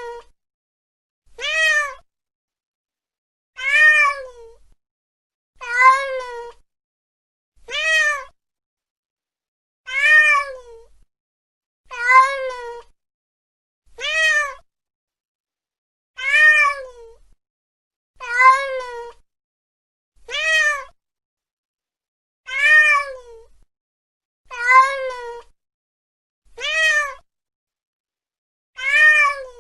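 A cat meowing over and over: one short meow about every two seconds, each rising and then falling in pitch, with silence between. The calls are nearly identical, the same meow repeated.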